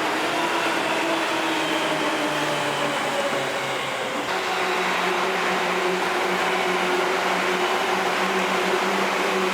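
Seibu New 2000-series electric train running with a steady rushing noise and a motor whine. The whine falls slowly in pitch over the first four seconds, as when the train slows. About four seconds in it changes abruptly to a steady, level whine.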